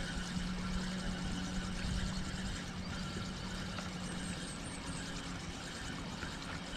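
Steady low hum of a distant engine running.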